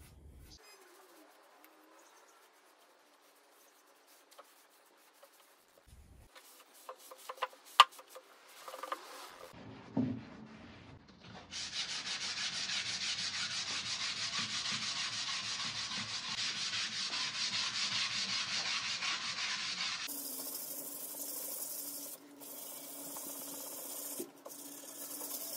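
Hand scuff-sanding a painted wooden dresser top with 400-grit sandpaper between paint coats: a steady rasping rub that starts about twelve seconds in and runs for about eight seconds, with a few sharp knocks before it.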